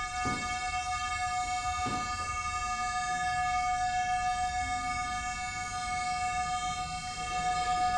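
KORG MA-1 electronic metronomes sounding sustained electronic tones together, a steady buzzy chord of several held pitches with no clicks.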